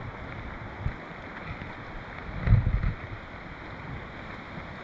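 Wind buffeting the microphone in low rumbling gusts, the strongest about two and a half seconds in, over a steady rush of river water.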